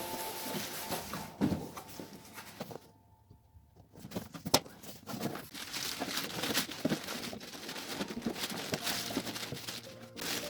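Packing a robot vacuum into its cardboard box: packaging rustling and crinkling with scattered taps and knocks, a brief hush about three seconds in, then a sharp knock soon after.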